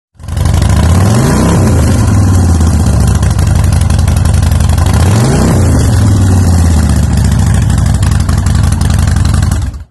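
Yamaha XJR1300's air-cooled inline-four engine idling, revved up and back down twice, about a second and a half in and again about five seconds in.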